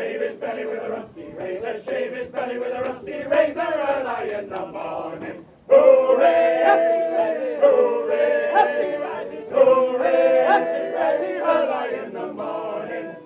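A group of voices singing a sea shanty together, unaccompanied. After a short break about five and a half seconds in, the singing comes back louder and fuller.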